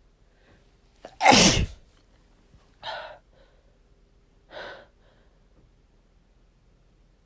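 A loud, chesty human sneeze about a second in, from dust irritating the nose, followed by two shorter, much quieter gasping breaths.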